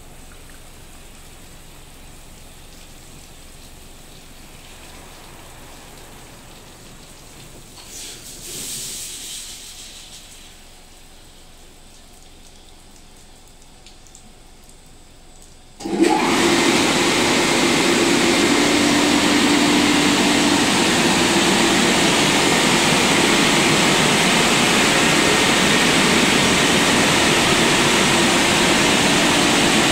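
Touchless car wash machine's high-pressure water jets: a low hiss with one short spray burst, then about halfway through a sudden loud, steady rush of spray with a low hum underneath.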